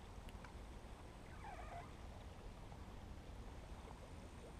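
Faint steady low rumble with one brief animal call, about half a second long, about a second and a half in.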